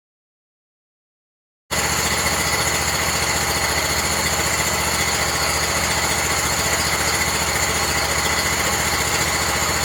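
Sawmill engine running steadily, starting abruptly after a second or two of dead silence, with a constant hum and a few steady high whines.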